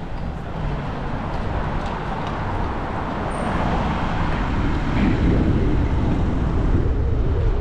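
Wind rushing over the microphone of a camera on a moving bicycle, with road and tyre noise on a slightly wet city street underneath. It grows a little louder about halfway through.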